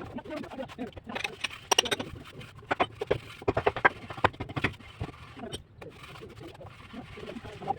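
Steel plastering trowel scraping and tapping on wet cement-sand plaster: a quick run of sharp scrapes and knocks, densest through the middle, thinning out near the end.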